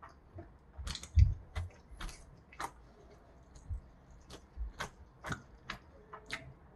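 Close-miked eating of rice mixed with boneless spicy marinated raw crab: an irregular string of short, sharp wet clicks and smacks, with a low thump about a second in.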